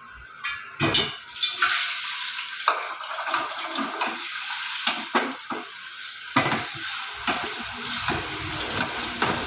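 Paneer cubes sizzling as they fry in a pan, with a spatula stirring and knocking against the pan several times.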